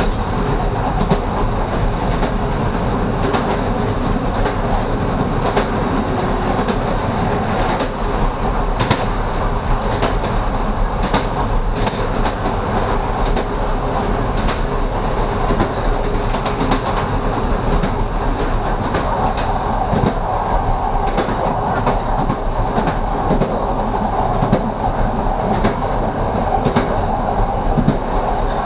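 Train running on jointed track: the wheels clatter over rail joints in sharp clicks about once a second, over a steady rumble and a faint high whine.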